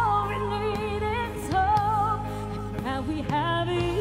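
A woman singing live into a microphone over backing music: a held note with wide vibrato, then quick melodic vocal runs near the end, above sustained chords that change about three and a half seconds in.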